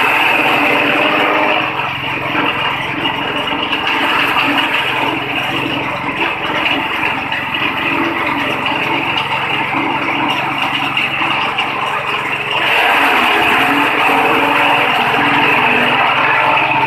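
Engine-driven roller-feed grass chopper running steadily, its blades cutting elephant grass with a dense chopping rush. The noise is louder while grass is being fed in, in the first second or so and again from about three quarters of the way through.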